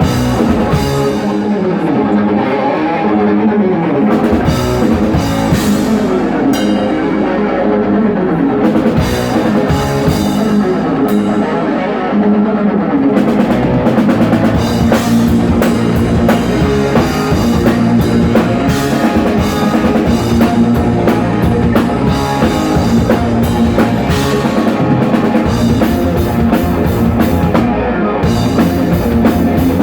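Heavy metal band playing live: electric guitars over a driving drum kit, with the low end and bass drum coming in fully about four seconds in.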